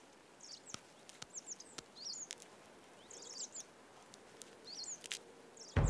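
Small birds chirping in short, high, quick phrases repeated every second or so, over a faint steady outdoor hiss, with scattered sharp light clicks.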